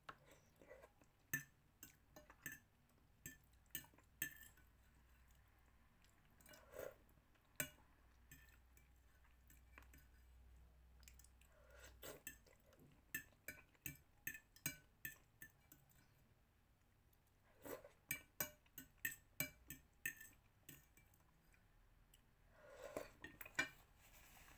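A metal fork clinking and scraping against a ceramic plate during eating, in scattered clusters of short, sharp clicks, with faint chewing between them.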